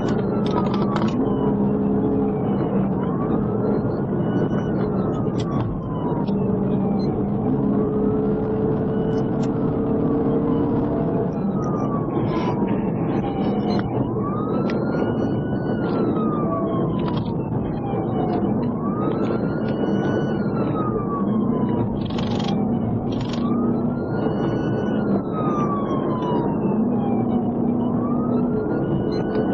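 Police cruiser siren in wail mode, sweeping up quickly and falling away slowly every four to five seconds, over steady engine and road noise from the patrol car driving at highway speed in a pursuit.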